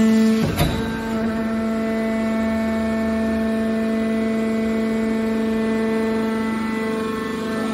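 Hydraulic power unit of a scrap-car metal baler running with a steady, pitched whine, with a brief knock about half a second in.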